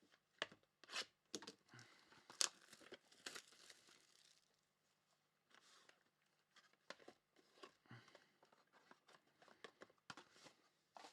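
Trading-card packs being torn open and their wrappers crinkled, with sharp rips and crackling in the first few seconds, then quieter rustling as the cards are handled.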